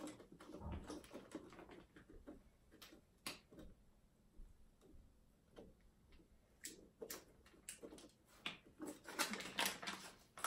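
Faint, irregular clicks and crinkles of hands working plastic icing bags and piping tips, with a small flurry of them near the end.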